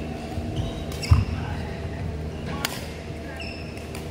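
Badminton rally: two sharp racket hits on the shuttlecock about a second and a half apart, the first and loudest with a dull thump, among short squeaks of court shoes on the floor.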